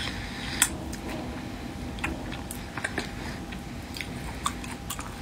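A person chewing raw whole shrimp, shells and all, with scattered small crunches and clicks; the sharpest crack comes about two thirds of a second in.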